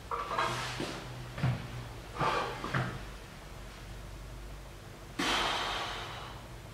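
A loaded barbell is lifted off chair seats, with a few short knocks and shuffles, then a sharp, forceful exhale about five seconds in as the heavy curl goes up, fading over a second or so.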